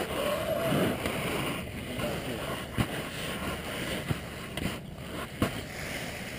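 Skis sliding over a Snowflex artificial slope surface, a steady hiss with several sharp clicks in the second half.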